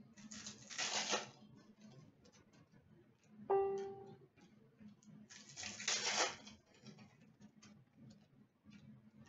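Trading card foil packs being torn open and crinkled, two rustling tears about five seconds apart, with small clicks of cards being handled between them. A short pitched chime sounds once about three and a half seconds in.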